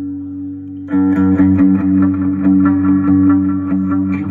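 Electric guitar played through an EarthQuaker Devices Avalanche Run delay and reverb pedal. A held chord sustains, then about a second in a fast, even run of picked notes starts, about five or six strokes a second.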